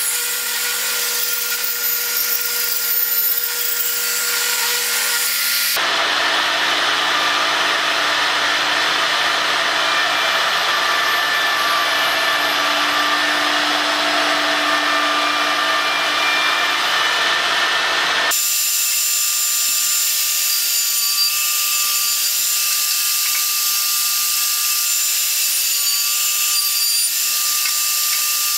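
Jobsite table saw running as a board is fed through the blade. About six seconds in, the sound switches abruptly to a rougher, noisier power-tool sound of a vertical spindle machine cutting into wood. Near two-thirds through it switches again to a steadier motor whine.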